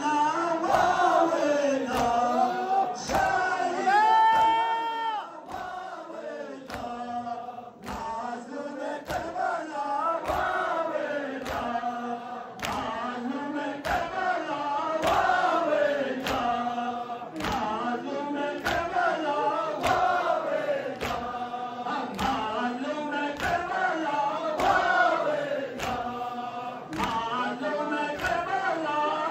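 A crowd of men chanting an Ashura mourning lament (nauha) together, with chest-beating (matam) striking in time a little more than once a second. A single high voice holds a long note about four seconds in.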